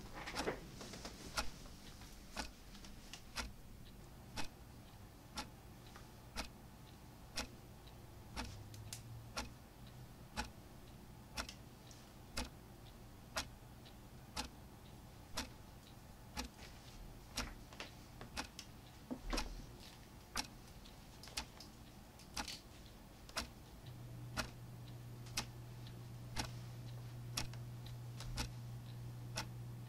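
Clock ticking steadily, about once a second. About three quarters of the way through, a low steady hum comes in under it.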